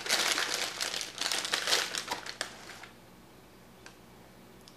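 Packaging wrapper crinkling and rustling in the hands as a bar of soap is unwrapped, a quick run of crackles that stops about three seconds in, leaving quiet room tone.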